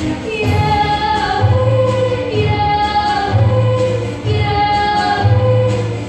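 Music: a group of voices singing a song with instrumental accompaniment. Sung notes are held and change pitch about every half-second to second, over a bass line.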